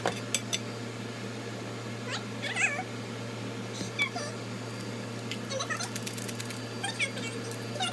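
A cat meowing several times, the longest call a few seconds in, over a steady low hum and a few sharp clicks.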